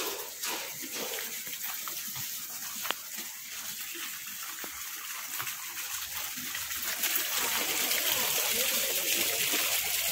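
Small garden fountain splashing, its water getting louder about two-thirds of the way through.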